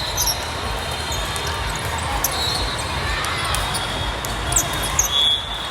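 Gym hall din during volleyball play: balls thud against hands and the floor, and shoes give short high squeaks over a steady murmur of crowd and other courts.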